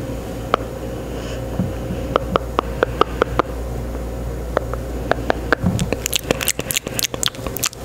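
Close-miked ASMR mouth sounds: soft wet clicks and smacks at an irregular pace, coming faster and sharper over the last two seconds, over a steady low room hum.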